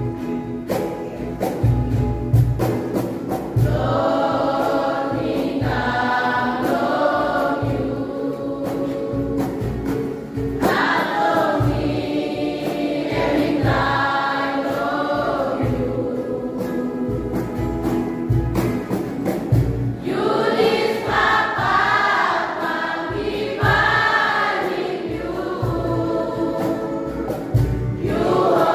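Children's Sunday school choir singing a gospel song together in phrases, with a steady low beat underneath.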